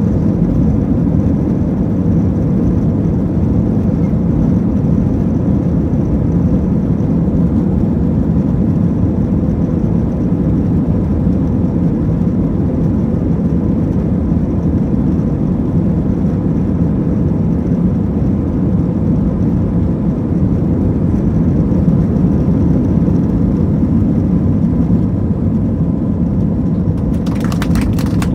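Steady cabin noise inside an Airbus A320: a deep engine and airflow rumble with a faint steady hum over it. A rapid clicking sets in near the end.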